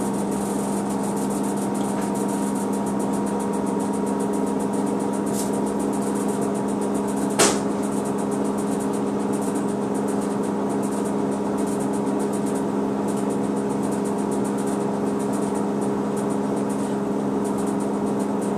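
Steady machine hum with a low drone from a front-loading washing machine running. A single sharp knock sounds about seven seconds in.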